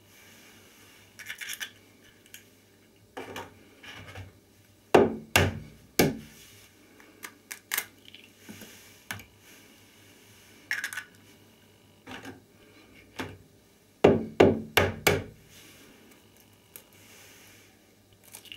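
Raw eggs being cracked open and dropped into sneakers: sharp knocks of the shells being struck, loudest in two quick runs of three or four about five seconds in and again about fourteen seconds in, with lighter clicks and shell crackling between.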